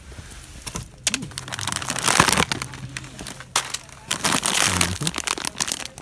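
Plastic snack bag and packaging crinkling and rustling in the hand, in irregular crackly bursts, loudest about two seconds in.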